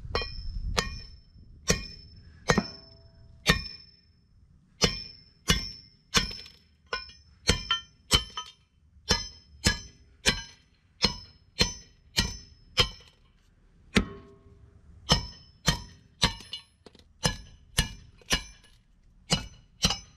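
Metal sledgehammer pounding the wheel studs out of a Dana 60 front hub and rotor: about thirty sharp, ringing metal-on-metal blows, mostly one or two a second, with a short pause about two thirds of the way through. A few solid hits on each stud drive it out of the hub.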